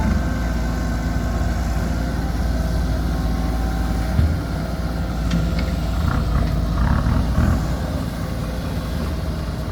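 Heavy diesel engine of earthmoving machinery running steadily, with a short knock about four seconds in and a few brief clatters a little later.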